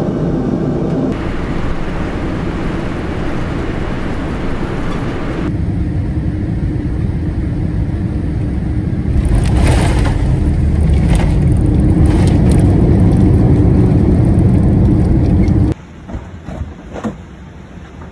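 Jet airliner engine and airflow roar heard in the cabin by the wing, steady at first. After a cut it is louder, the roar of the aircraft rolling down the runway after touchdown, with a few sharp rattles. Near the end it cuts off suddenly to quieter cabin sounds with a few knocks.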